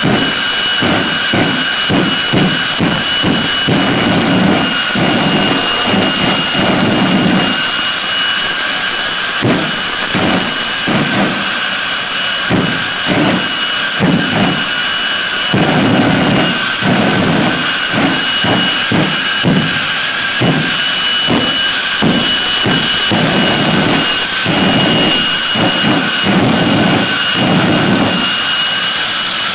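Jet dragster's turbine engine running with a steady high whine, while its afterburner is lit again and again. The afterburner gives irregular loud bursts, one or two a second, as fireballs blow from the exhaust.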